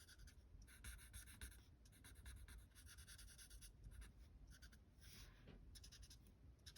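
Faint, repeated scratchy strokes of an alcohol-marker blend pen nib rubbing on card as an image is shaded, in short runs with brief pauses between them.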